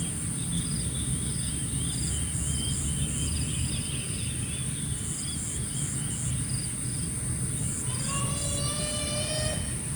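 Morning outdoor ambience: insects keep up a steady high drone with regular repeating chirps over a low rumble, and a bird warbles briefly a few seconds in. Near the end a long, steady, high-pitched call with a slight rise in pitch begins.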